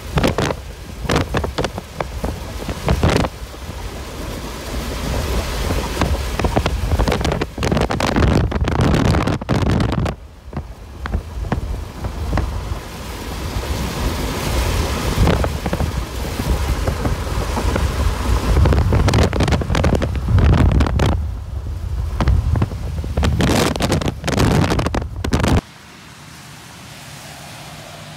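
Strong storm wind gusting and buffeting the phone's microphone, a loud rushing noise with a heavy, rising and falling low rumble. Near the end it cuts off suddenly to a much quieter steady background with a faint low hum.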